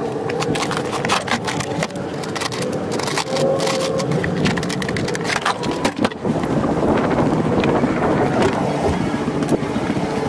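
Tools and gear clattering and knocking as they are handled and shifted, a dense run of small knocks and rattles.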